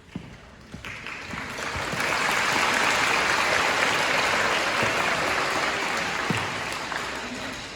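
Assembly audience applauding. The clapping swells about two seconds in, holds steady, and tapers off near the end.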